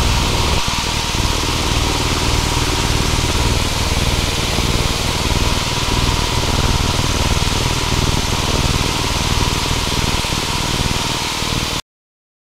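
Cabin noise of a Piper Pacer PA-22/20-135 in flight: the 135-horsepower piston engine and propeller drone steadily with a strong low hum, mixed with airflow hiss. It cuts off suddenly near the end.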